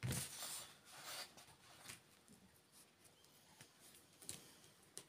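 Paper die-cut pieces being handled and slid over a table: soft rustling and rubbing of paper. The loudest rustle is at the very start, another comes about a second in, then only faint light ticks.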